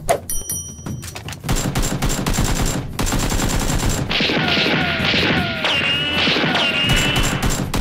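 Rapid automatic gunfire: scattered shots at first, turning into a dense, continuous fusillade from about a second and a half in. Whining glides sound over the shots in the middle.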